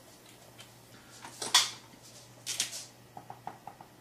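Dry-erase marker drawn across a whiteboard: two quick scratchy strokes about one and a half and two and a half seconds in, then a run of short light ticks near the end.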